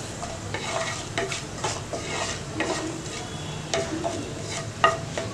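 Whole spices (cinnamon, cloves, cardamom and fennel seeds) frying in hot oil in a nonstick pan, with a steady sizzle. A wooden spatula scrapes and taps across the pan again and again as they are stirred.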